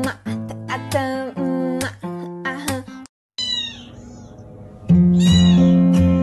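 Plucked-string music, then after a brief break several short, high kitten meows that bend in pitch. Loud music comes back in about five seconds in, with more meows over it.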